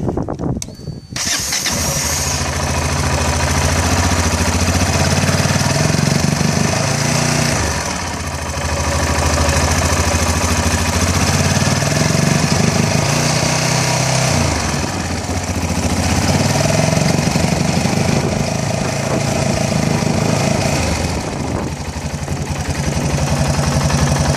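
Yamaha XT660's single-cylinder four-stroke engine starts about a second in, then runs and is revved up and held, easing back near 8, 15 and 22 seconds. It misfires in its rev range; with the throttle position sensor turned fully clockwise the misfire sits about 300 rpm higher up the range. The fault turned out to be the manifold absolute pressure sensor.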